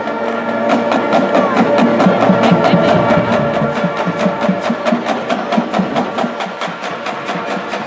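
Marching band playing held chords over a quick, even percussion beat of sharp strikes, about six a second.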